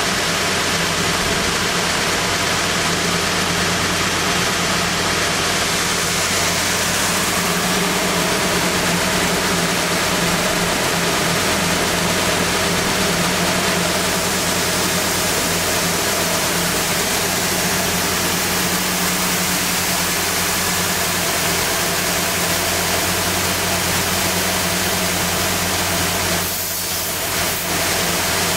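Snowboard wood-core CNC sander running in automatic production, its sanding head abrading the wooden core: a steady motor hum under an even, hissing sanding noise. The noise dips briefly near the end.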